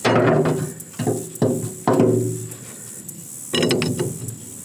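Several sharp metal clanks, each ringing out briefly, as a large steel combination wrench knocks against the blade-pan nut and the steel deck of a rotary mower (brush hog). A lighter metallic clink comes about three and a half seconds in.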